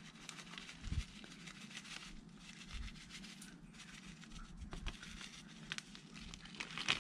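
Faint crinkling of a clear plastic bag being handled and shaken as potting soil is sprinkled from it, with light crackly pattering of soil landing on the soil in the pot and a couple of soft bumps.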